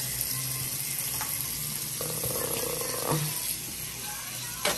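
Bathroom sink faucet running steadily into the basin, with a short knock near the end.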